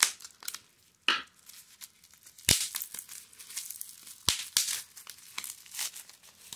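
Plastic bubble wrap crinkling and tearing as it is snipped with scissors and pulled off a small glass jar, in a run of short rustles with a few sharper snaps.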